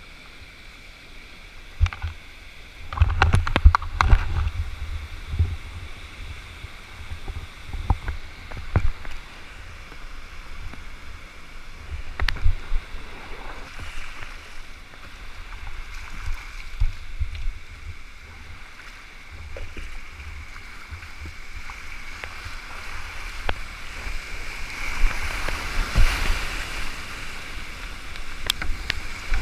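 Kayak paddle blades splashing into a river, with scattered knocks and low thumps against the camera. The rushing of whitewater rapids grows louder near the end as the kayak reaches the churning water above a waterfall.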